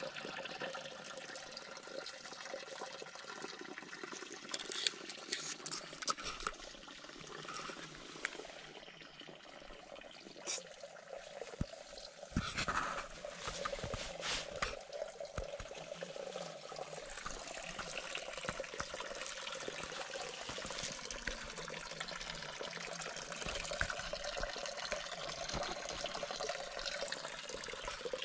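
Water trickling steadily into a small garden pond, with a cluster of clicks and knocks about halfway through.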